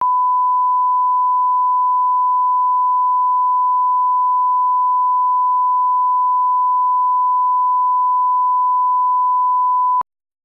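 A steady 1 kHz test tone, the line-up reference tone that runs with colour bars, held at one pitch and level and cutting off suddenly near the end.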